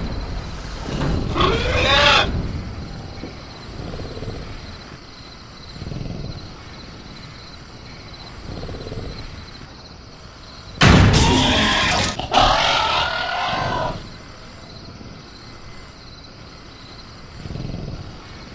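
Sound-designed velociraptor creature vocals: a short pitched growl near the start, soft low growls every few seconds, and about 11 seconds in a loud roaring screech lasting about three seconds in two parts. A faint steady chirring of crickets runs underneath.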